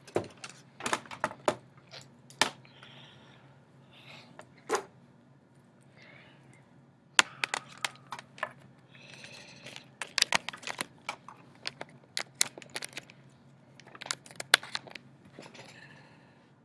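Irregular sharp clicks and knocks, sometimes several in quick succession, with brief soft scraping noises between them.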